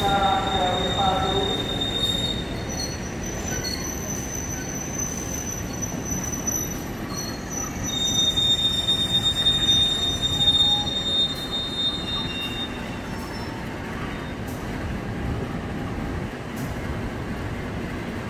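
Steel wheels of a locomotive-hauled passenger train squealing on the rails as the coaches roll past and away, over a steady rolling rumble. The squeal comes as thin high tones that shift pitch and come and go, strongest about eight to eleven seconds in.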